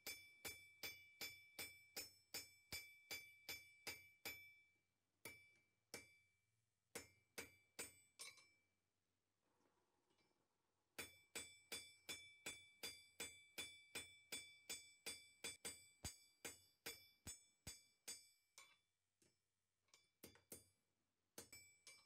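Blacksmith's hammer striking hot iron on an anvil in steady, faint blows, about three a second, each with a bright ring from the anvil. The blows pause for a few seconds in the middle, then start again in a second steady run that thins out near the end.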